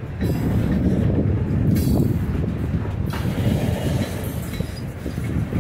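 Freight train cars rolling past close by: a steady rumble of steel wheels on the rails.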